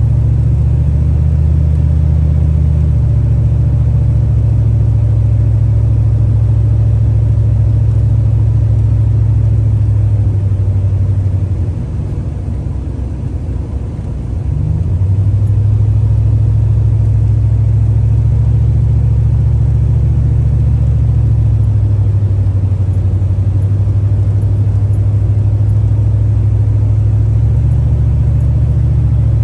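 Dodge Ram pickup heard from inside the cab while driving: a steady low engine and road drone whose pitch steps up or down a few times. It eases off and goes quieter for a few seconds around the middle.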